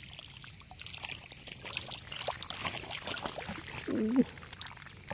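Water splashing and trickling as a hand scoop net is swept through shallow pond water and lifted out, water draining through the mesh. A brief voice sound about four seconds in.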